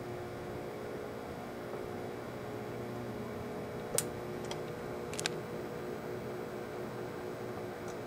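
Microwave oven running with a steady hum while a stack of CDs sparks inside, with a few sharp crackling snaps from the arcing around the middle, the loudest about halfway through.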